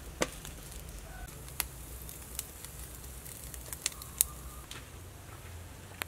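Charcoal fire crackling under sausages grilling on a wire rack, with scattered sharp pops at irregular intervals, the loudest about four seconds in.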